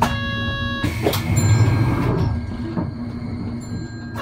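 Route bus heard from inside the cabin: a steady low engine and road rumble, with an electronic tone sounding for just under a second at the start and again near the end.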